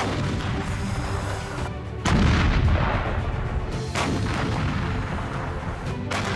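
Heavy artillery booms from 2S19 Msta-S 152 mm self-propelled howitzers firing and their shells bursting. There are four blasts, each with a fading rumble: one at the start, the loudest about two seconds in, another about four seconds in and one near the end. Background music plays under them.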